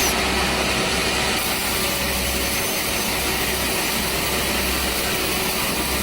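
Large sawmill saw blade running at high speed through a log: a steady, dense mechanical noise that holds at an even level.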